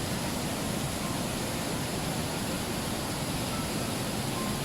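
Steady rushing of falling water, an even noise without breaks.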